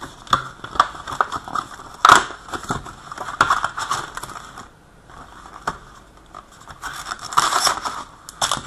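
Plastic wrapping crinkling, crackling and tearing with sharp clicks, the sound of a sealed box or pack of hockey cards being opened by hand. It goes quieter for a moment in the middle, then the crinkling picks up again.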